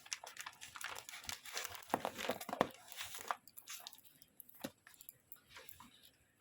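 Packaging crinkling and rustling as it is handled and opened, with quick crackles and sharp clicks, busiest in the first half and sparser toward the end.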